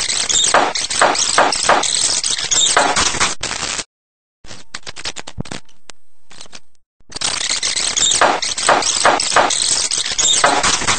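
Loud harsh noise in two long bursts of about four seconds each, with a stretch of quieter crackling clicks between them.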